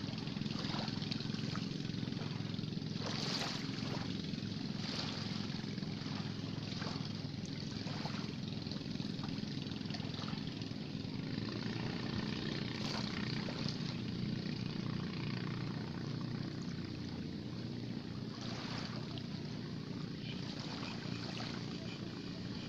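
A steady low engine drone, with a few faint clicks now and then.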